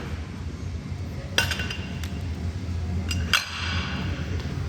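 Metal clinks and clanks of weightlifting barbell gear, plates and collars knocking together: two sharp ringing knocks, one about a second and a half in and one near the three-second mark, with lighter ticks between, over a steady low hum.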